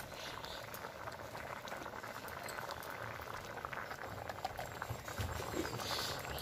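A thin, watery curry boiling hard in a large aluminium kadai: a steady bubbling with many small pops.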